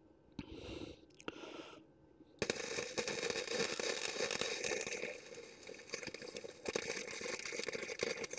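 Wire-feed welder laying a weld: a dense, steady crackle that starts about two seconds in and stops abruptly near the end, after two short hissing bursts.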